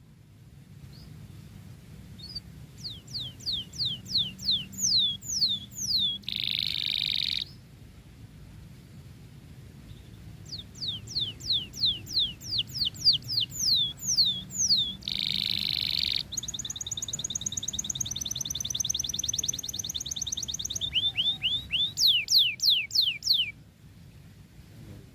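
Domestic canary singing in long phrases of quick, high, downward-sweeping whistled notes. These are broken by short buzzy rolls and, in the second half, a long fast trill. The song pauses for a couple of seconds about a third of the way through.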